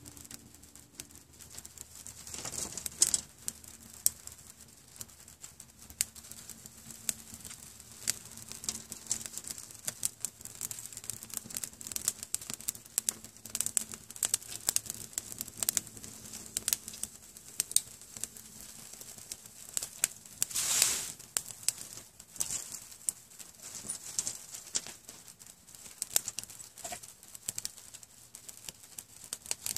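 Small fire of dry leaves, twigs and thin split red oak crackling in a hobo stove, with sharp irregular pops throughout. Twice, a few seconds in and again about two-thirds of the way through, a longer rustle of dry material.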